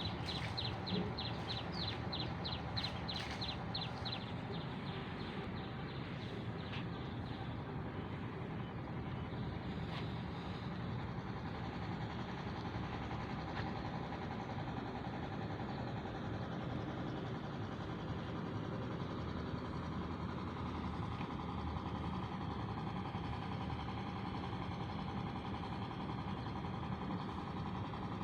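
Large diesel engine idling steadily, an even low hum. A quick run of high chirps sounds over it during the first four seconds.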